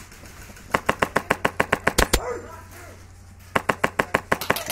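Airsoft gun firing two rapid strings of shots, about eight to nine a second: the first about three-quarters of a second in, lasting about a second and a half, the second starting near the end.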